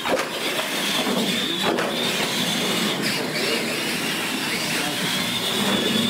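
Radio-controlled monster trucks racing on a concrete floor: a steady high motor whine with tyre noise, and a few sharp knocks as trucks land from ramp jumps.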